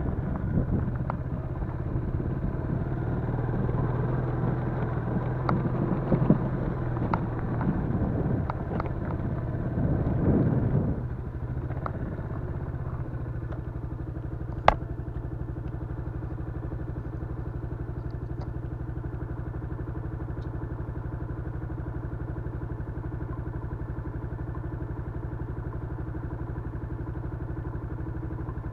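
Yamaha Crypton-X's small single-cylinder four-stroke engine running, with clattering knocks over the first ten seconds or so. About eleven seconds in it settles into a steady idle, with one sharp click a few seconds later.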